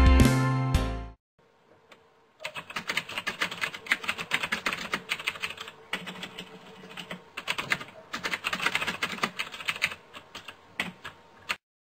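Computer keyboard typing: rapid key clicks in runs with short breaks, starting a couple of seconds in and stopping abruptly near the end. The tail of background music fades out in the first second.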